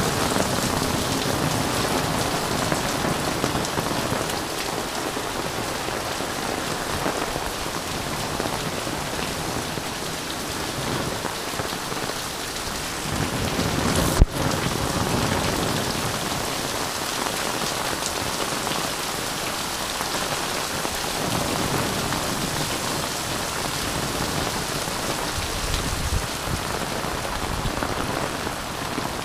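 Heavy rain falling steadily on an umbrella overhead and on the roofs and pavement around it, with one sharp click about halfway through.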